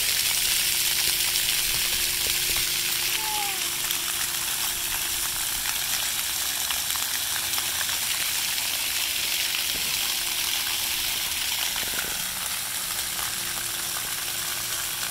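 Splash pad fountain jets spraying water up from the ground and splattering onto wet concrete: a steady hiss.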